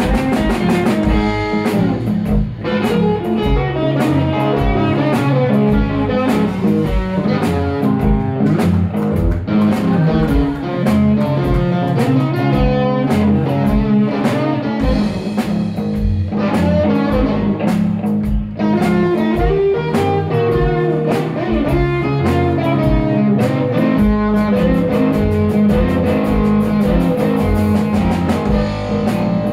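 Live blues band: an electric guitar takes the lead over electric bass and a drum kit, with the bass walking steady notes under regular drum hits.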